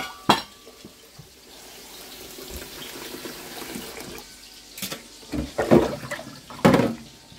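Kitchen sink tap running, with two sharp knocks at the start and three louder short bursts in the second half.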